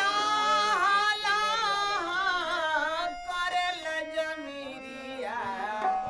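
Music: a solo voice singing a long, ornamented melodic line that glides and wavers in pitch, with a brief break about three seconds in.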